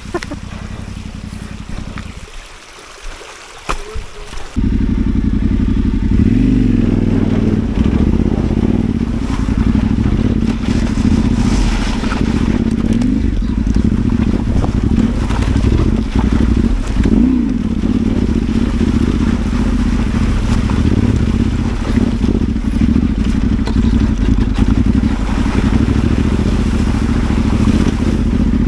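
Adventure motorcycle engine running loud and steady, its revs rising and falling as it rides, starting abruptly about four and a half seconds in after a few quieter seconds with scattered clicks.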